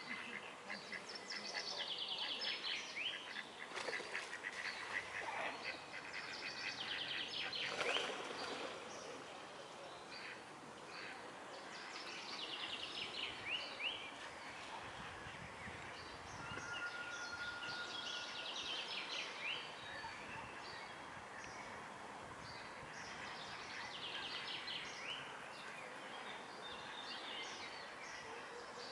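Songbirds singing in the surrounding trees: short phrases of rapid high notes repeating every few seconds over a steady outdoor background, with one louder, harsher call about eight seconds in.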